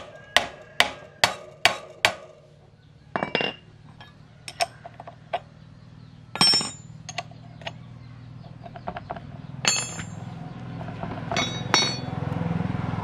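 Sharp metallic clicks and clinks from a motorcycle's wire-spoked front wheel being handled. A quick, even run of clicks comes first, then scattered clinks, a few with a short metallic ring. A low hum builds near the end.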